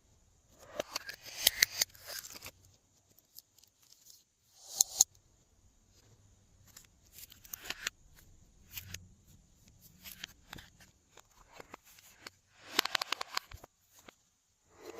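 Glossy slime being pressed, folded and stretched by hand, giving off crackly runs of sticky clicks and small air-bubble pops in three louder bursts, about a second in, near five seconds and near thirteen seconds, with softer scattered clicks between.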